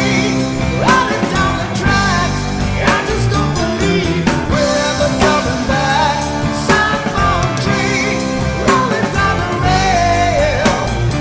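Heavy metal song playing: electric guitars and a drum kit, with a high melody line that bends in pitch.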